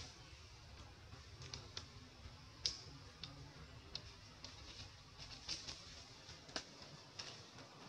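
Faint, scattered, irregular clicks and ticks over a low, steady rumble, the loudest click a little under three seconds in.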